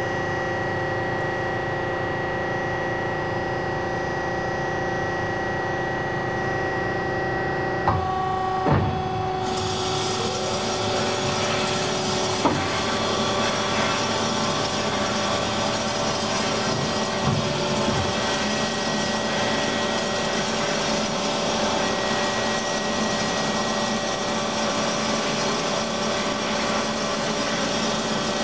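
Hyd-Mech S23-A horizontal bandsaw running under power. A steady machine hum runs with a few sharp clicks about eight seconds in. Soon after, a brighter hiss comes in with a short rising whine as another drive spins up, and it then holds steady, with a couple more clicks later on.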